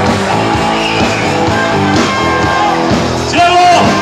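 Live band music with singing.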